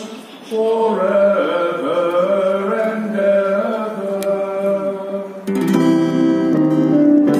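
A single voice singing unaccompanied, then an acoustic guitar starts strumming about five and a half seconds in.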